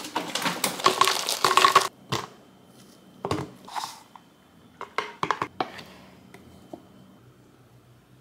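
Smoothie ingredients (banana chunks and blueberries) tipped into a plastic blender cup, a dense rattle for about two seconds, followed by scattered clicks and knocks of containers on a kitchen counter.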